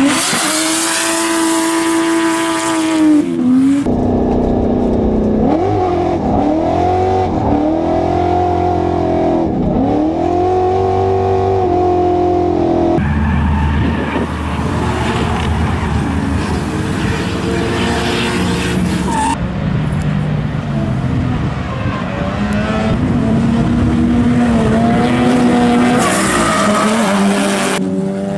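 Drift cars' engines revving hard, pitch sweeping up and down over and over as the throttle is worked through the slides, with tyres squealing and skidding. The sound changes abruptly three times as it cuts between cars.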